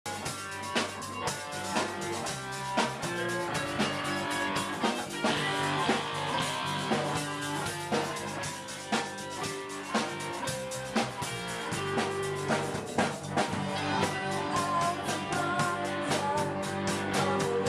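A small rock band playing an instrumental passage: a Tama drum kit keeps a steady beat under bass guitar and guitar.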